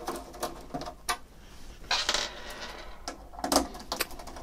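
Screwdriver working the screws out of a Macintosh Plus's plastic rear case: scattered small clicks and knocks of the driver in the screw heads and against the case. There is a longer scrape about two seconds in and a louder knock about three and a half seconds in.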